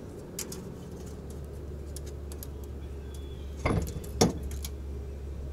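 Sharp metallic clinks of a steel tape measure knocking against a trailer hitch ball mount, two of them about half a second apart past the middle, with a few fainter ticks earlier, over a steady low hum.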